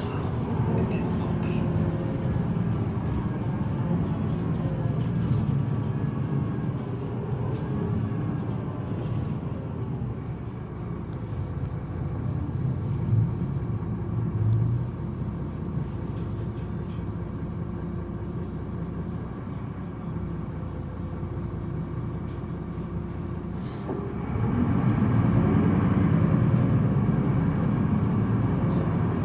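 Solaris Urbino 18 articulated bus's DAF 9.2-litre six-cylinder diesel with ZF Ecolife automatic gearbox, its note falling as the bus slows, then running quieter at idle. About 24 seconds in it grows louder and rises in pitch as the bus pulls away.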